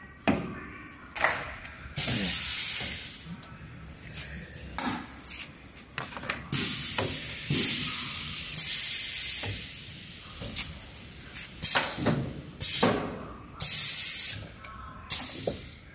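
Pneumatic window-profile corner machine cycling: several loud hisses of compressed air from its cylinders and valves, the longest about four seconds, between sharp metallic clunks and clicks of the clamps and the profile being handled.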